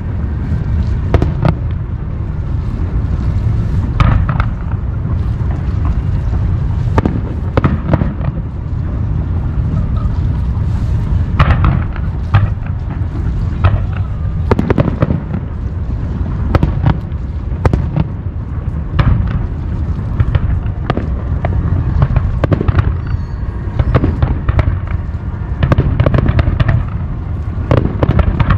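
Aerial fireworks bursting in quick succession: many sharp bangs, some in rapid clusters, over a constant low rumble of the display.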